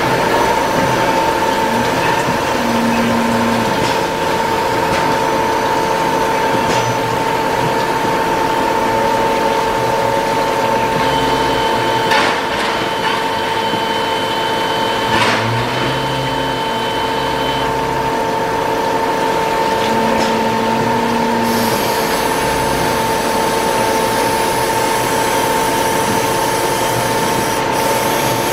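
Star SR20R CNC Swiss-type lathe running a machining cycle: a steady machine whine over the hiss of coolant spray. A higher steady tone comes in for several seconds near the middle, with two sharp clicks about three seconds apart, and the hiss grows brighter about three quarters of the way through.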